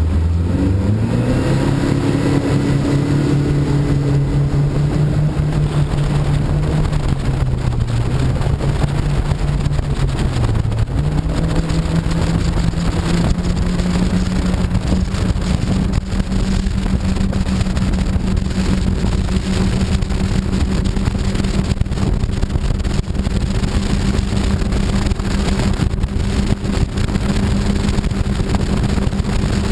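Mercury Pro XS outboard motor revving up as the powerboat pulls away, then running flat out with a steady drone. Its pitch dips briefly about ten seconds in, climbs again and holds. Rushing wind and spray hiss run underneath.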